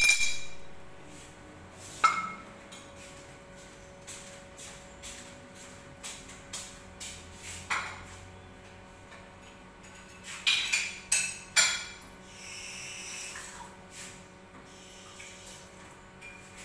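Kitchenware clinking: scattered knocks and clinks with short ringing, the loudest at the very start, one about two seconds in and a quick cluster about ten to twelve seconds in, followed by a brief hiss.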